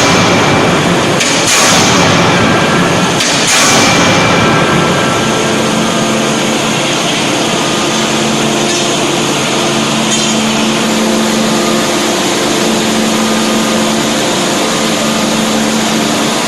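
An 18-ton fully hydraulic closed die forging hammer strikes twice, about two seconds apart, in the first few seconds. After that its hydraulic drive runs on with a steady machine hum.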